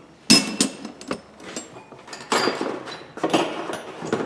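Loose steel hand wrenches and sockets clinking and clattering against one another as they are rummaged through in a box. A sharp ringing clink comes just after the start, and a longer stretch of scraping and jostling follows about halfway through.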